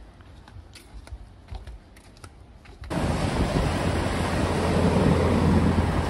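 Faint footsteps on a wooden boardwalk, then, about three seconds in, a much louder steady rush of wind and surf with the low, steady drone of an airplane flying low overhead.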